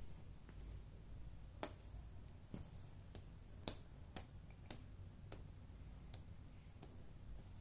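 Faint, sharp clicks at uneven intervals, roughly one or two a second, over quiet room tone.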